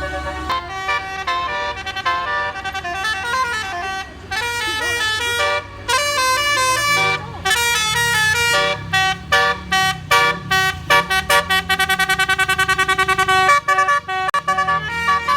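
Telolet 'basuri' melody horn on an Indonesian bus playing a quick tune of clear, stepped notes, breaking into a fast repeated trill of notes near the end, with the bus's low engine rumble underneath.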